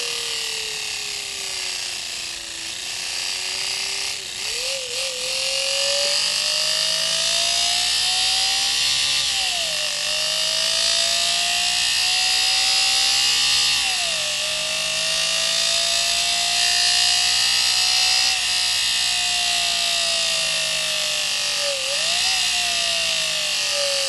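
Homemade engine-sound device: a slotted cardboard disc spun at high speed with a paper strip flapping against its four cuts, giving a loud buzzing imitation of a four-cylinder engine. The pitch sinks at first, then climbs repeatedly, each time dropping back sharply before rising again, like an engine revving hard through gear changes.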